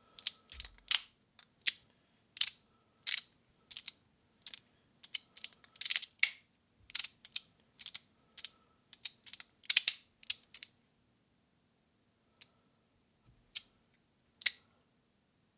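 3D-printed fidget slider (Fidgetmanufactur Core 2, crunchy version) being slid back and forth, its plates giving a short crunch at each stroke: a quick, irregular run of sharp clicks for about ten seconds, then only three or four single clicks.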